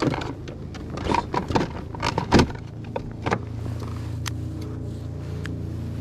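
A string of sharp clicks, knocks and rustles from fishing gear being handled. About three seconds in, steady background music with a low sustained tone comes in.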